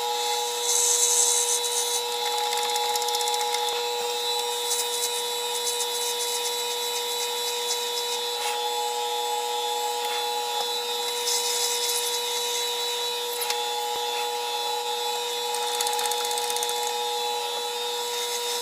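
A lathe running steadily with a steady hum while a 10.5 mm drill bit in the tailstock chuck bores through a spinning cast resin pen blank; a higher scratchy cutting noise swells and fades several times as the bit is fed into the resin.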